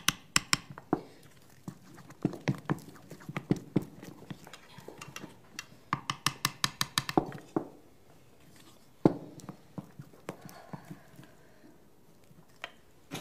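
A metal spoon knocking and clinking against a bowl as a mixture is stirred and worked, in irregular sharp knocks with a quick run of strikes about six seconds in and one louder knock near nine seconds.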